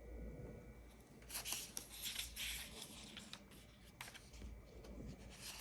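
Faint rustling of paper as an instruction manual's pages are handled and turned, with a soft click about four seconds in.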